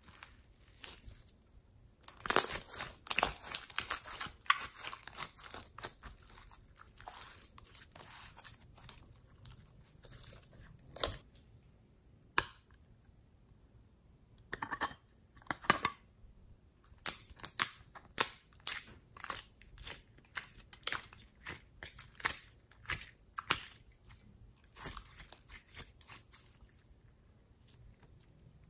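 Glossy pink glitter slime being pressed, squeezed and stretched by hand, giving runs of sticky clicking and crackling pops. There are two long busy stretches with a few single clicks between them.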